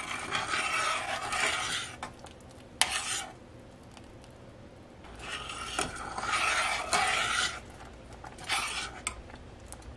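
A metal spoon stirring thick, simmering strawberry and red jalapeno sauce in a stainless steel saucepan, scraping through the sauce and against the pot in four bouts with short quieter pauses between.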